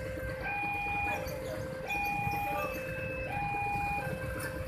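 Indonesian railway level-crossing warning alarm sounding its alternating two-note chime, a high note and a low note each held about two-thirds of a second, over a low rumble, warning that a train is approaching.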